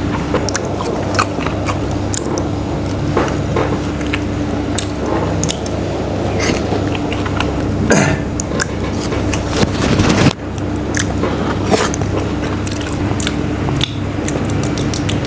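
Close-up eating sounds: a person biting and chewing food, with many small wet clicks and crackles, over a steady low hum. A rushing noise swells about eight seconds in and cuts off suddenly about two seconds later.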